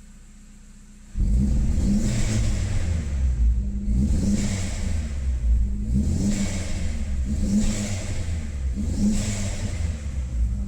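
Audi A3 1.8T 20-valve turbocharged four-cylinder engine, which comes in suddenly about a second in and is then revved again and again, with a rush of intake hiss on each of about five blips. It is breathing through a newly fitted open dual-flow sports air filter.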